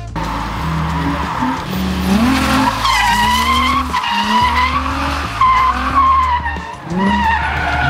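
Nissan 350Z drift car sliding through a corner, its engine revving up again and again in rising pulls while the tyres squeal in wavering stretches.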